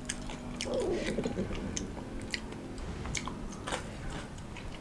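Close-up chewing of a mouthful of small whole selir fish and spinach, with many short wet mouth clicks and smacks scattered throughout.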